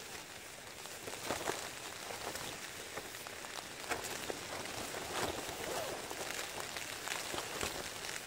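Wind buffeting a tent, heard from inside: a steady rush with the tent fabric rattling in scattered, irregular sharp crackles.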